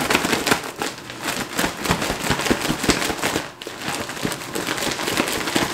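Plastic zip bag of breading flour crinkling and rustling in the hands, a dense run of crackles.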